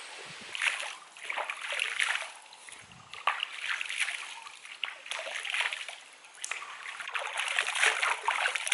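Hands scooping and splashing shallow stream water, in irregular bursts of splashing and dripping as a man washes his face.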